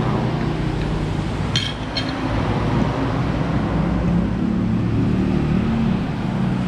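Steady low rumble of nearby road traffic, a vehicle engine running close by, with two light clinks of metal cutlery on a plate about a second and a half in.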